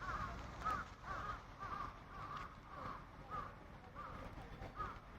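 Birds calling over and over in a steady series of short caw-like calls, about two a second.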